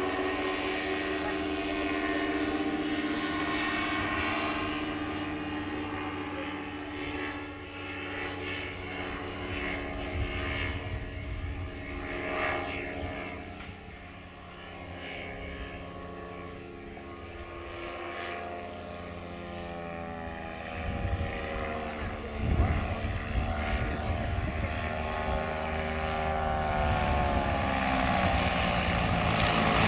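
Rotax 277 single-cylinder two-stroke engine and propeller of an Earthstar Laughing Gull ultralight in flight overhead. The engine note drifts in pitch and grows louder toward the end as the plane comes nearer.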